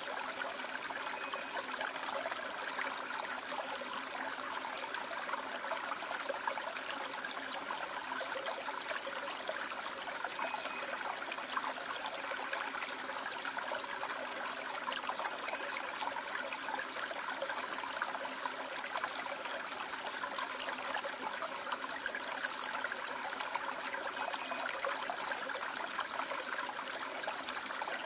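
Valley stream water running over rocks in a steady, unbroken rush.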